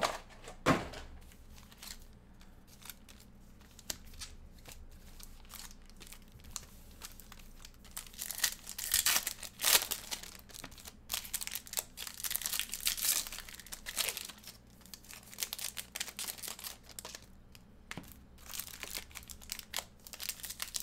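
Foil trading-card pack wrappers being torn open and crinkled by hand, in repeated crackly bursts that start about eight seconds in.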